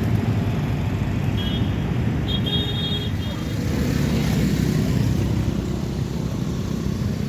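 Truck running along the road, heard from riding on it: a steady low rumble of engine and road noise. Brief high-pitched tones sound in the middle.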